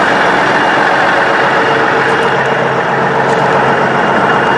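Tandem-axle truck engine running steadily with a constant loud drone.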